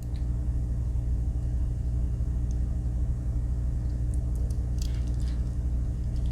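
Steady low hum of room background noise, with a few faint small clicks about four to five seconds in from the Swiss Army knife being handled.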